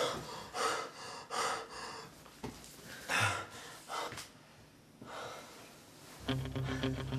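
A person breathing hard in short, sharp breaths, about six over five seconds. Guitar-and-bass music with a steady beat comes in about six seconds in.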